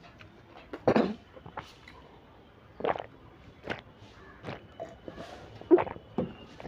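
A person eating with a full mouth: chewing and swallowing egg noodles, with scattered short wet mouth sounds and gulps, one louder sharp sound near the end.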